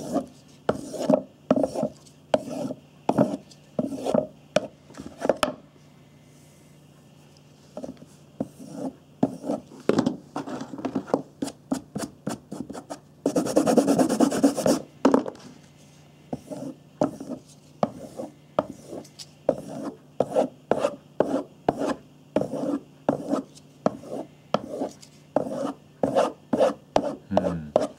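Knife blade stroked back and forth on a strop charged with white polishing compound, rasping strokes about two a second with a short pause near the start. About halfway through, the strokes give way to a couple of seconds of steady scrubbing as white compound is rubbed onto the strop.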